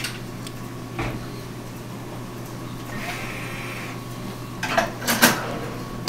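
Cordless drill-driver whirring for about a second and a half as it backs a Phillips screw out of a sheet-metal appliance panel. Near the end come several louder clicks and knocks of the driver and the panel being handled.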